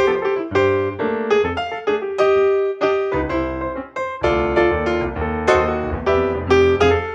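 Background piano music: a run of struck notes over held low bass notes.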